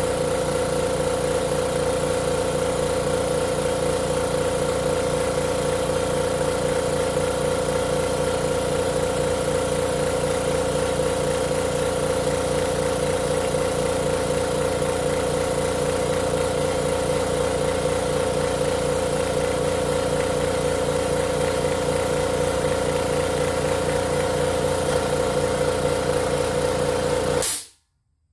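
2.5 HP portable air compressor running steadily as it pumps up its tank, then cutting off abruptly near the end as the pressure switch trips at full pressure. The tank reaching cut-out shows the compressor is building air again, which suggests the no-air fault is repaired.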